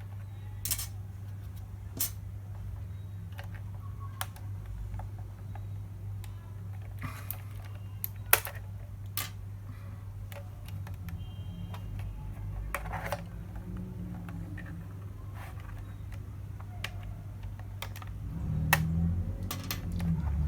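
Outemu blue mechanical keyboard switches being pulled out of the keyboard, giving scattered sharp plastic clicks every second or two. The loudest click comes about 8 seconds in, and a steady low hum runs underneath.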